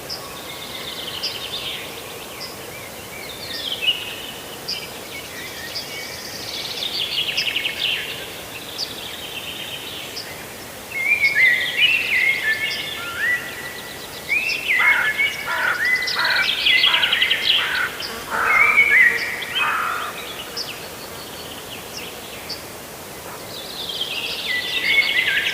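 Small birds chirping and trilling: many short, high notes and quick runs, busiest and loudest in the middle stretch, over a steady background hiss.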